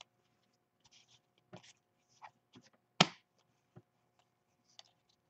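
Trading cards being shuffled through by hand: a few short slides and flicks of card stock against card, the loudest about three seconds in.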